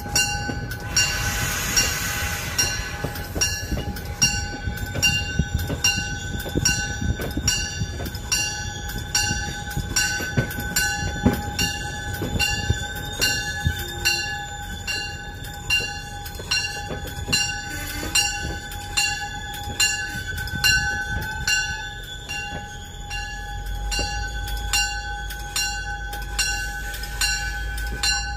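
MBTA commuter rail train: a low diesel rumble under steady tones, with a regular high ringing beat about twice a second throughout. There is a short hiss about a second in, and the low rumble deepens near the end.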